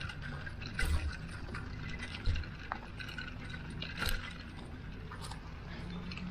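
Bicycle in motion: irregular light clicks and rattles from the bike over a low rumble of tyre and wind noise, with a few louder knocks.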